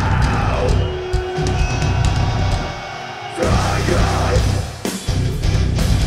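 Heavy metal band playing live: distorted electric guitars over bass and drums. The low end drops away for a moment around three seconds in, then the full band comes crashing back in.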